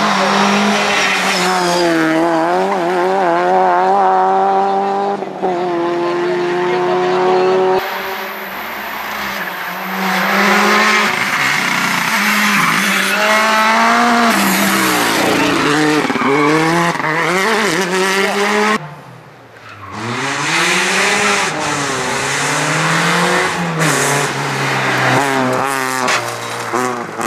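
Rally car engines revving hard at full throttle, the pitch climbing and dropping through fast gear changes as the cars pass at speed. The sound cuts abruptly twice, about 8 and 19 seconds in, as it jumps from one car to another.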